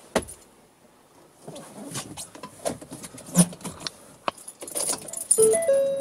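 Keys jangling and clicking as the van's ignition key is handled and turned, then a few short electronic beeps from the dashboard near the end as the ignition comes on.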